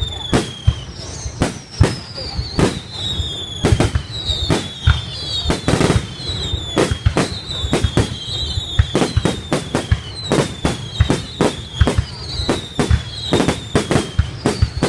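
Fireworks going off in a rapid, irregular string of sharp bangs and pops, several a second. Through it a whistle that falls in pitch repeats about every second and a half.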